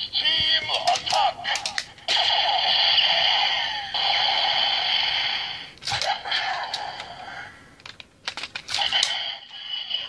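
A Kamen Rider Build toy gun plays electronic sound effects and voice calls through its small speaker, with plastic clicks as Full Bottles are inserted and removed. About two seconds in, a loud hissing effect with tones runs for about four seconds, and more clicks and effects follow near the end.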